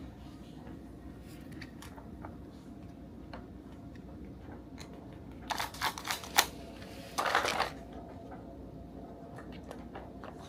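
A nosework snuffle toy being rummaged, with scattered faint ticks. A quick cluster of sharp clicks comes a little past the middle, followed by a short rustle.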